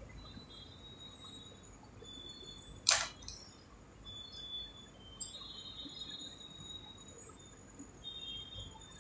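Faint, light tinkling of glass bangles clinking on the wrists as the arms move, with one sharp click about three seconds in.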